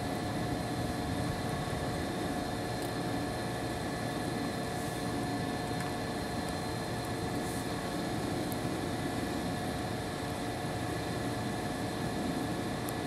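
A steady mechanical hum that holds several constant tones and does not change.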